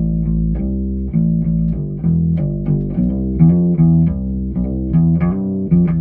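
Ibanez SRH505F fretless five-string bass played unaccompanied, with the tone knob all the way up: a run of plucked notes and double-stops starting about two to three times a second.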